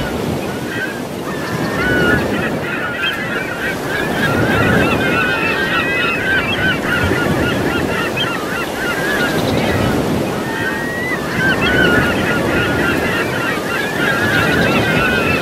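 A flock of birds calling, many at once and without pause, over the wash of waves breaking, which swell up every few seconds.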